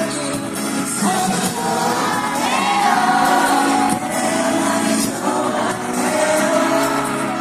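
Pop song performed live through a hall PA: a male voice sings sustained, bending lines over the backing music, with some crowd shouts.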